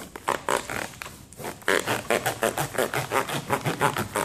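Bread knife sawing back and forth through a roll of water-activated resin fiber wrap in its pouch. A rasping stroke comes a few times in the first second and a half, then settles into a quick steady run of about four to five strokes a second.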